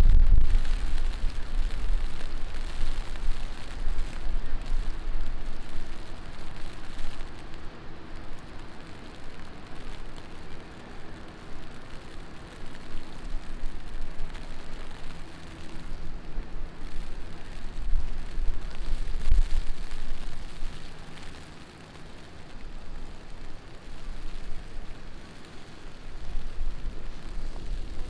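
Heavy rain falling on a city street with traffic going by; low rumbles swell at the start and again about two-thirds of the way in.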